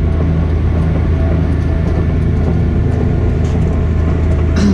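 Tractor engine droning steadily under way on the road, heard from inside the cab, with a strong low hum.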